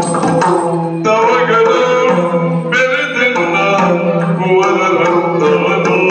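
A male voice sings a Yakshagana melody in long, wavering held notes over a steady drone. Drum strokes die away about a second in.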